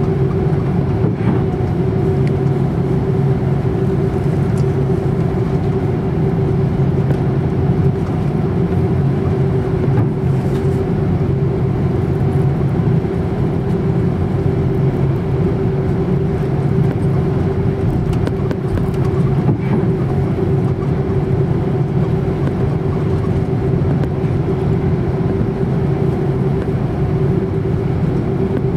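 Airbus A330-300's Rolls-Royce Trent 700 engines at taxi idle, heard inside the cabin as a steady drone with a constant hum and a few faint ticks.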